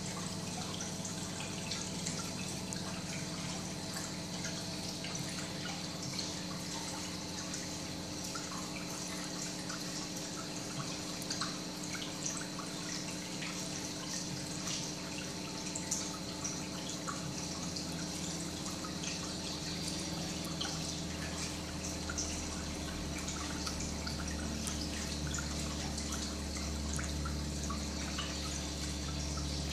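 Reef aquarium water circulation: a steady trickle with many small drips and splashes over a steady hum from the tank's pumps. A low rumble grows louder about two-thirds of the way in.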